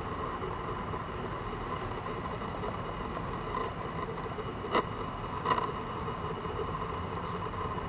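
Street ambience: a steady rumble of vehicles and traffic, with two short knocks a little over halfway through.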